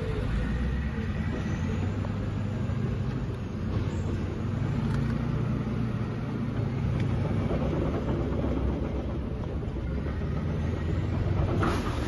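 Armored tracked bulldozer's diesel engine running with a steady low rumble as it moves in. Near the end, a short burst of knocks and clatter as its blade strikes the stone column.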